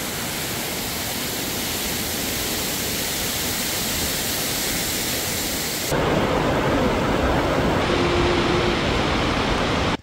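Steady rushing of a waterfall pouring down a rock face. About six seconds in it changes abruptly to the fuller, lower rush of a creek running over rocks.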